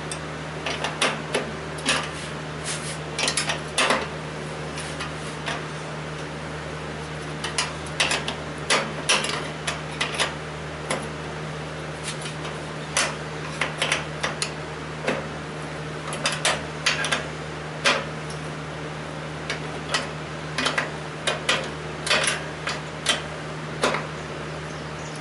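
Irregular metallic clinks, taps and knocks of hand tools and metal hardware being handled, over a steady low hum.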